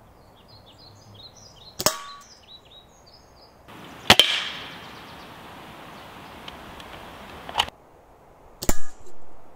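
Sharp cracks from a spring-piston airsoft rifle made of 3D-printed PLA firing BBs, four in all, with BBs striking aluminium cans. The loudest crack comes a little over four seconds in and rings briefly.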